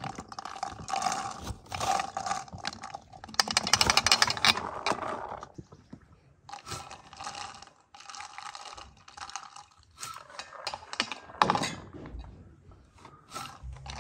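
Pomegranate seeds dropped by hand into glass bottles, clicking and rattling against the glass in several bursts of a second or two.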